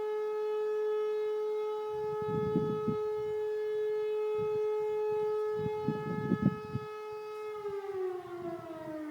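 Air-raid siren sounding a steady tone with strong overtones, then winding down near the end, its pitch falling steadily. Two bursts of low rumble come in under it, the second the louder.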